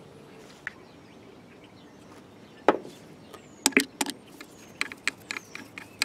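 Sharp metallic clicks and taps from a screwdriver and Phillips screws as the bearing retainer plate is screwed down on a Bosch water-cooled alternator's rear housing, starting after a couple of quiet seconds and coming quicker and irregular in the second half.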